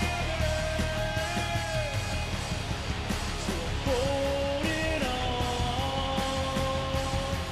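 Rock song: electric guitar over programmed drum-machine drums and bass, with a long held melody line gliding between notes on top.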